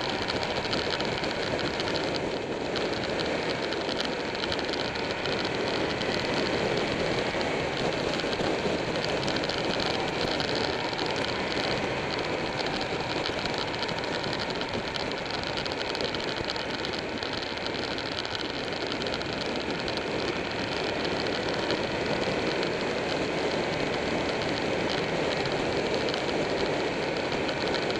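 Steady wind rush over a motorcycle-mounted camera at cruising speed, with the engine and tyre noise of a Buell 1125R V-twin sport bike running underneath.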